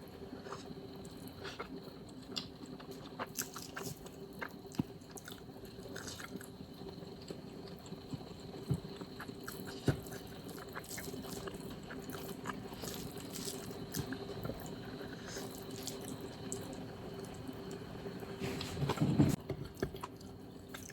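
A person chewing and biting food close to the microphone, with scattered small clicks and mouth sounds over a faint steady hum, and a brief louder sound near the end.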